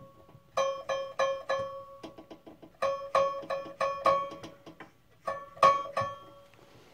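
Scroll saw blade plucked by finger to check its tension, ringing one steady note with each pluck in quick groups of three to six strikes. The tension is suspected to be too light.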